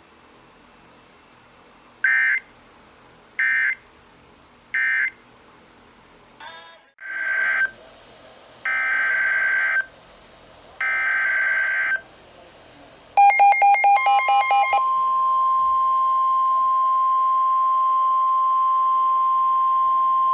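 Emergency Alert System signalling on a weather radio broadcast. Three short screechy SAME data bursts end the previous warning, then three longer bursts carry the header of the next alert. A quick run of electronic beeps follows, then the steady weather-radio alert tone comes on about 14 seconds in and holds.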